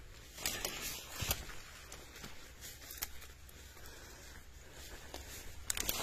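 Footsteps crunching and rustling over dry leaf litter and fallen twigs: a run of crackling steps about half a second to a second and a half in, fainter scattered crackles through the middle, and more steps near the end.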